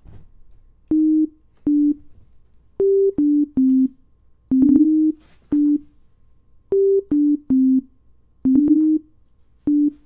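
Simple synth tone from Ableton Live's Operator instrument playing a slow, halting melody of single short notes in a low-mid register. Each note is a plain, almost pure tone with a click at its start.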